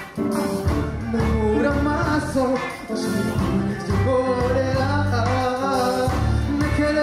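Live music: a man singing into a microphone over accompaniment with a deep, pulsing bass.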